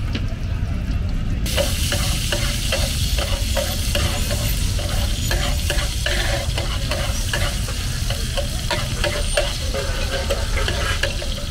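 Hot oil sizzling on a large flat steel tawa as liver pieces fry. The hiss jumps up about a second and a half in, as chopped green chilies go into the oil, and a metal spatula scrapes and taps on the tawa throughout. A steady low rumble runs underneath.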